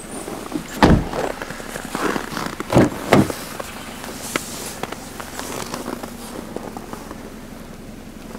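A few dull thumps, one about a second in and two close together near three seconds, with small clicks and rustle in between.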